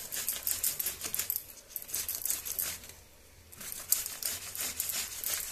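An apple being grated by hand on a stainless steel grater: quick rasping strokes in runs, with a short lull about three seconds in.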